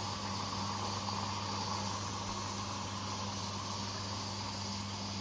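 Korting KWM 47T1480 washing machine running early in a cotton wash cycle: a steady hiss with a low, even hum underneath.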